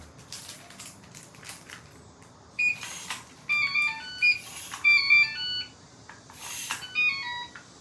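Kaiser digital door locks answering an RF card with electronic melodies of short beeps stepping up and down in pitch, starting about two and a half seconds in. The tones from the gate lock and the synchronised wooden-door lock overlap, and three brief rushing bursts come between them.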